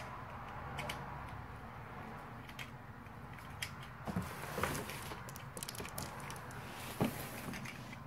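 Light clicks and taps of small plastic toy pieces, a toy grill and its grate, being handled and pressed together, with sharper clicks about four and seven seconds in.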